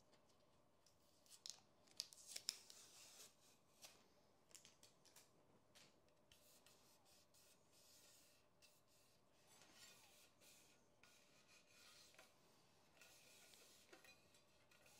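Faint rubbing and scraping with scattered small clicks from hands working on a carbon bicycle wheel rim, with louder scraping strokes about two to three seconds in.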